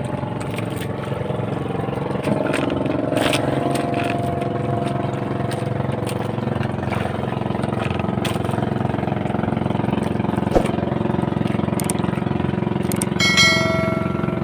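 Outrigger fishing boat's engine running steadily at a low trolling speed. A short bright electronic chime sounds near the end.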